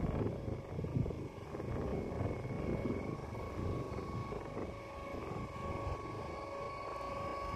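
Distant electric local train (EMU) running, heard as a faint steady high hum, over an uneven low rumble of wind on the microphone.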